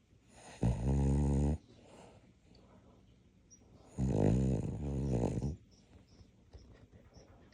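A dog snoring in deep sleep: two low snores, the first about half a second in and lasting about a second, the second starting about four seconds in and lasting about a second and a half, with quiet between them.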